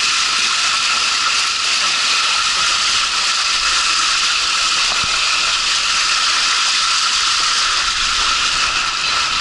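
Water rushing down a water slide: a loud, steady hiss.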